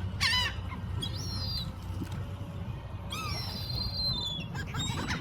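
Gulls calling: a few short high cries in a row, one of them held longer about three seconds in, over a steady low rumble.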